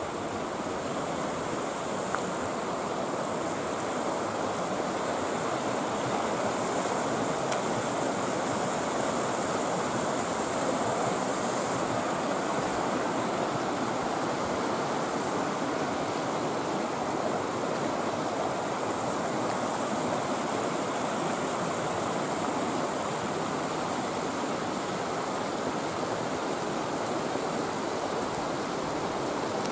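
Mountain stream rushing steadily over rocks, an even, unbroken water noise.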